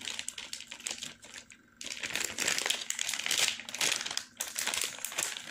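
Plastic packet of spring roll wrappers crinkling as it is handled, with a short pause about one and a half seconds in.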